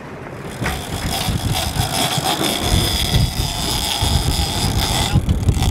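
Wind buffeting the microphone over the rush of water past a sailing yacht's hull under way in rough sea, with a steady high whine running through it.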